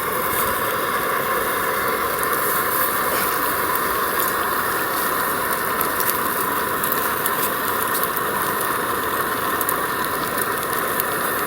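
Tempura frying in hot oil: a steady sizzle with many small crackles and pops.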